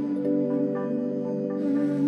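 Background music: held notes shifting over a steady low tone.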